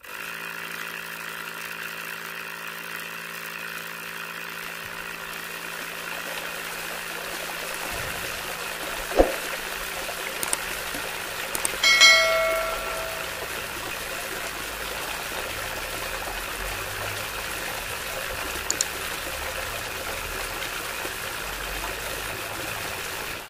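Small toy DC motor running steadily, driving a syringe water pump through a string pulley, with water trickling from the pump's spout. A brief chime rings about halfway through.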